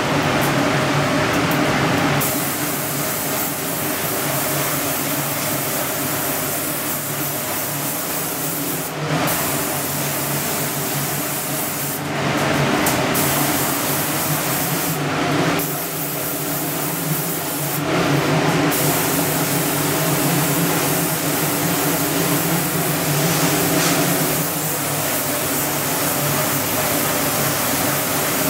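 Paint spray gun hissing steadily as it sprays single-stage paint, with the hiss brightening in several short spells, over a steady low hum.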